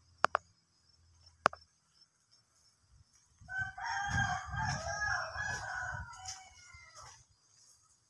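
A rooster crowing once, a single long call of nearly three seconds that starts about three and a half seconds in. Two sharp clicks come before it, within the first second and a half.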